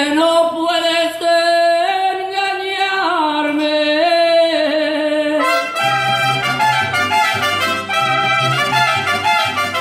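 Live mariachi band playing: a sustained melody line moves in held steps for the first five seconds or so. Then, about six seconds in, a low bass line and the fuller band join under it.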